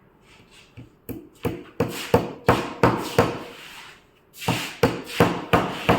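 Rapid hammer blows on wood, about three a second, in two runs with a short pause just after the middle.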